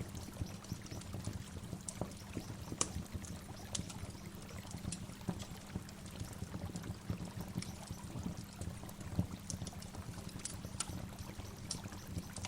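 Waterfall: a steady rush of falling water, with scattered sharp splashing ticks over it.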